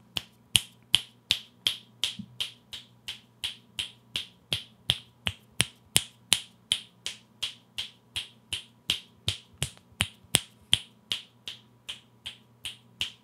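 Finger snaps, close to three a second, picked up by an Elgato Wave DX dynamic microphone as the hand circles it. The snaps rise and fall in loudness: they are quieter from the sides and from behind, where the microphone's cardioid pickup pattern rejects sound.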